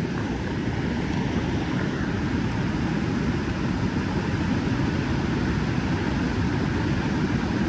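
A steady, loud low rumble with a fainter hiss above it, unbroken throughout.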